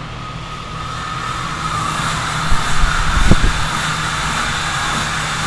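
Steady loud roar and hum of a drying blower pushing air into a long inflated plastic lay-flat duct, with a few low bumps about halfway through.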